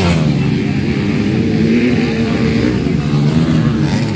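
Several motocross bikes racing, their engines revving up and falling back at overlapping pitches.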